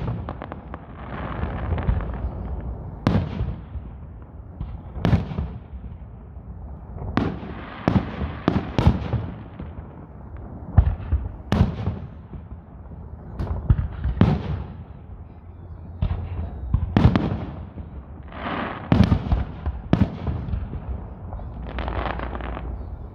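Fireworks display: aerial shells bursting in a rapid, irregular series of sharp bangs every second or two, each followed by rumbling echo and crackle.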